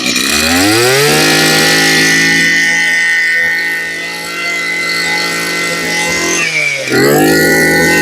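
Maruyama Maru 20 brush cutter engine (30 mm bore) on a test run. It is revved up from idle to full throttle within about a second and held there steadily for about five seconds. It then drops back toward idle for a moment and revs up again near the end.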